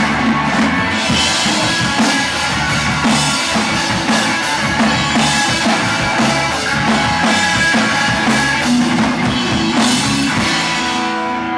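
Live rock band playing loud: electric guitar, bass guitar and a drum kit with cymbals. Near the end the cymbals and drums drop away, leaving the guitars ringing.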